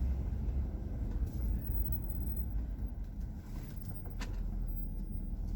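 Low, steady rumble of a car's engine and tyres heard from inside the cabin while driving, with a faint click about four seconds in.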